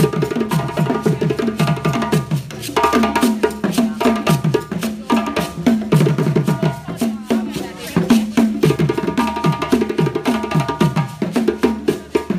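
A live ensemble of hand drums, struck by hand, playing a quick, steady rhythm. The rhythm mixes deep toned strokes with sharp higher slaps.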